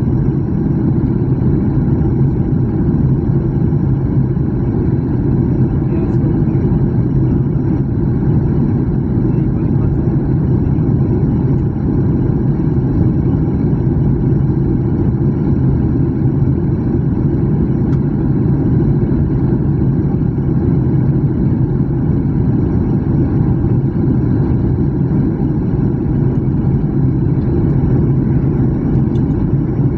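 Steady cabin drone inside a jet airliner in flight: engine and airflow noise, mostly a low rumble with an even hum in it, unchanging throughout.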